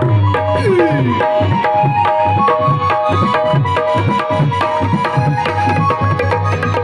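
Tabla playing a steady rhythm over sustained held melodic notes, as in a qawwali group's instrumental sound check. About half a second in, the bass drum's pitch slides down.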